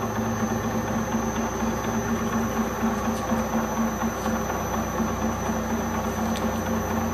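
Acraturn metal lathe running at low speed under power while the tool takes a light cut. A steady machine hum carries an even pulse from the slightly unbalanced workpiece, which is shaking the whole lathe a little.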